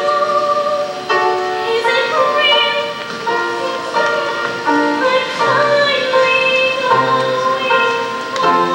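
A girl's voice singing a show tune over instrumental accompaniment, holding long notes that change pitch every second or so.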